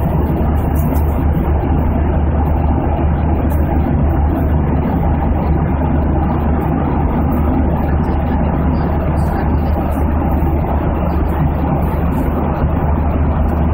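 Aircraft cabin noise in flight: a steady low engine drone under an even rush of airflow, unbroken throughout.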